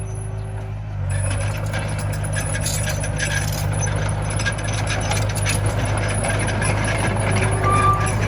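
Komatsu mini bulldozer's diesel engine running steadily with a low drone, with light metallic clicks and rattles over it.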